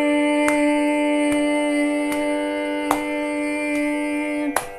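Carnatic vocal music: a woman's voice holds one long, steady note over a continuous drone, and the note stops near the end. Sharp hand taps keep the Adi tala about once every 0.8 seconds, six of them in all.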